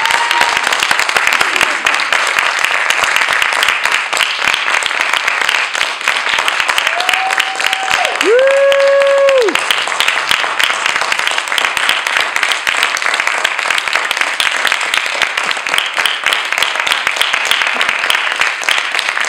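Audience applauding steadily, with one voice calling out a long held cheer about eight seconds in.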